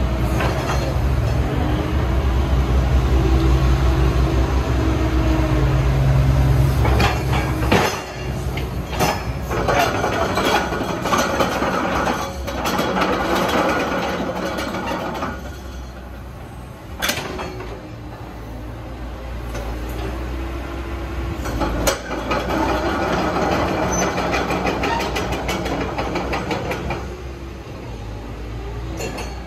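Caterpillar 312D hydraulic excavator working: its diesel engine runs under load, with hydraulic flow noise as the boom, arm and bucket move and the machine swings. A heavy low engine hum fills the first several seconds, and a few sharp clanks come later.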